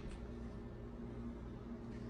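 Faint steady low hum over quiet background noise: room tone.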